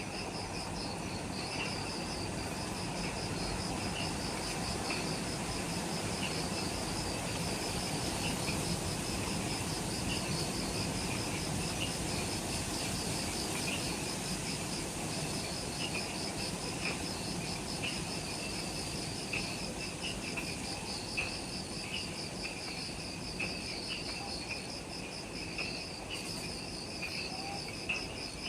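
Forest insects chorusing at dusk. A fast, high pulsing trill pauses briefly about halfway through, over a lower chirp that repeats about once a second.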